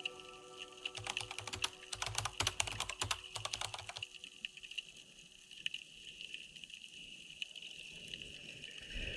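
Computer keyboard typing sound effect: a fast run of key clicks starting about a second in and stopping about four seconds in, followed by a faint hiss.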